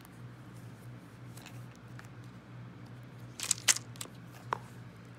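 Hands opening a SUVA Beauty cardboard eyeshadow palette: a few faint taps, then a cluster of sharp clicks and snaps about three and a half seconds in as the lid comes open, and one more click about a second later.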